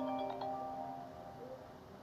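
A ringtone melody of short, bright pitched notes, its last notes ringing out and fading away in the second half.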